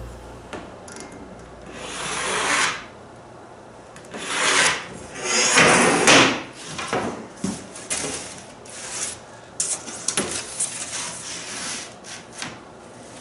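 A steel framing square and a pencil rubbing and scraping across a sheet of plywood as pattern lines are marked out: three long strokes in the first half, then shorter scrapes and light knocks.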